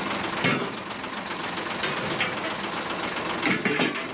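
Large diesel truck engine idling steadily, with a few short knocks about half a second in and again near the end.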